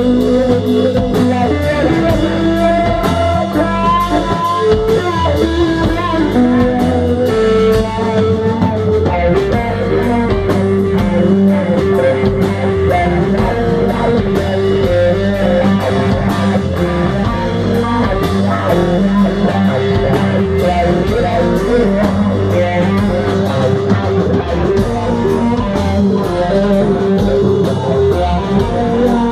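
Live rock band playing loud and without a break: electric guitars carrying melodic lines over a drum kit with steady drum and cymbal hits, in an instrumental passage.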